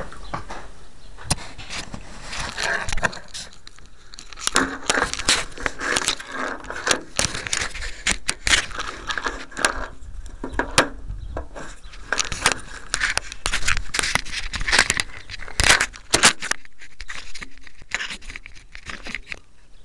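Handling noise from a small handheld camera: irregular rustling, scraping and crackling against the microphone, with occasional sharper knocks.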